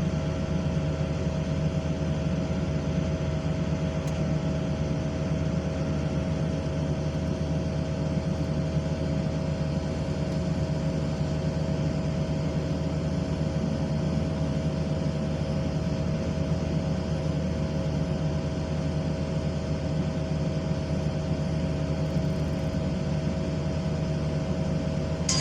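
Excavator engine running at a steady speed, an even unchanging drone with no knocks or bucket impacts.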